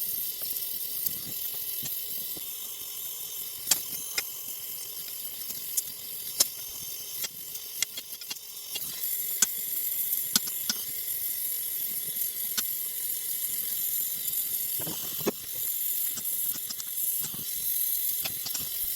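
LPG gas torch flame hissing steadily, with scattered sharp crackles and ticks. The hiss grows a little louder about nine seconds in.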